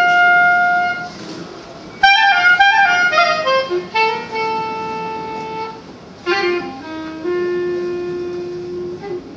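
Solo clarinet playing a slow unaccompanied melody: long held notes broken by quick runs of short notes that step down to the next held note.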